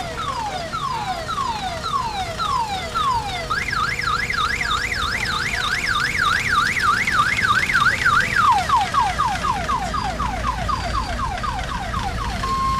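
Electronic vehicle siren cycling through its tones: falling whoops about two a second, then a fast high warble rising and falling about three times a second, then quicker falling whoops about four a second.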